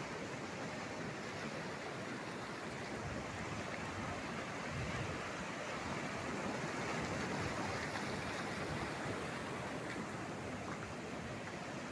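Breaking surf washing over a rocky shore shelf: a steady rush of waves and foam, swelling a little about halfway through.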